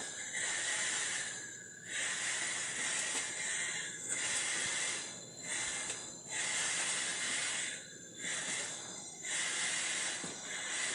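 Gas torch flame hissing steadily, dipping briefly several times, while it heats a seized washing-machine transmission to loosen it from the tub.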